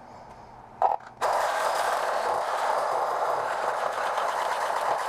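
A short knock, then about a second in a handheld power tool starts and runs steadily at a constant level, with a harsh, noisy sound.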